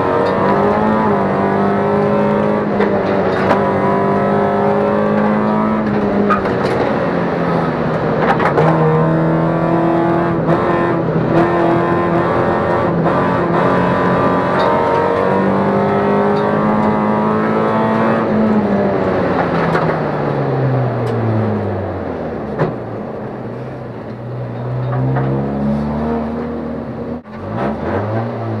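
A Toyota Yaris's 1.3-litre four-cylinder engine pulling hard under load, heard from inside the cabin during a slalom run. The revs hold, then step and glide up and down with gearchanges and throttle. About three-quarters through the revs drop away as the car slows, then climb again near the end.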